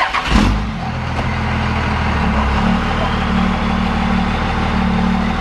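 1985 Ford pickup's engine running steadily, with a low thump just after the start, as the truck's rear wheel is used to break the bead of a tire.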